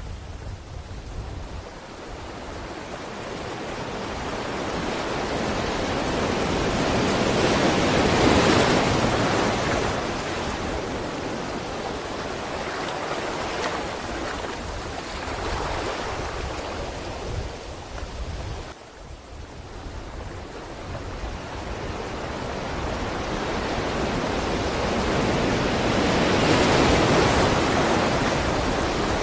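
Sea waves breaking on a shore. The surf swells to a peak about eight seconds in, eases back, dips briefly, then builds to a second peak near the end.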